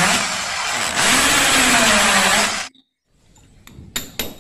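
Hand-held electric drill running under load, boring into a ceramic floor tile; it cuts off suddenly a little over halfway through. Near the end, a few light hammer taps on a chisel chipping out the hole.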